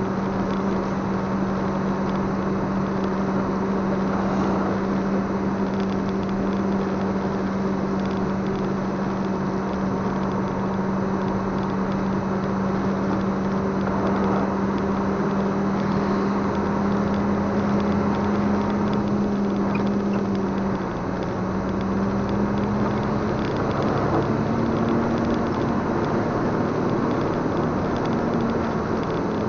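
Engine of a moving road vehicle running with a steady hum, heard from inside, over a haze of tyre and road noise on a wet road. The engine note dips briefly about two-thirds of the way through, then runs a little higher before settling back near the end.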